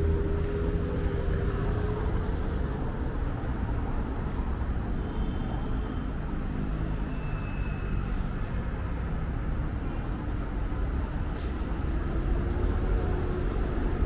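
Busy city-street traffic at a large intersection: a steady rumble of cars and buses driving through. An engine's tone levels off and fades in the first couple of seconds, and another vehicle's engine rises faintly near the end.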